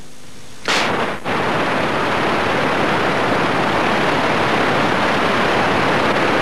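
A short burst of noise about a second in, then a steady, even hiss of blank videotape static.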